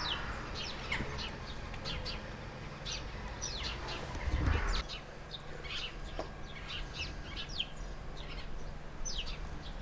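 Small birds chirping repeatedly in short, sharp, falling notes, with a brief louder, lower sound about four and a half seconds in.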